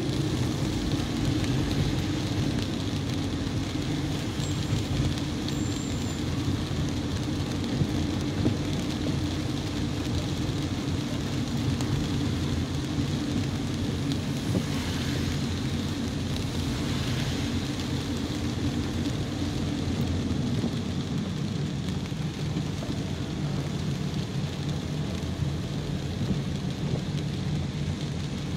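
Car driving in rain, heard from inside the cabin: a steady low drone of engine and tyres under an even hiss of rain and wet road. Two short swells of louder hiss come around the middle.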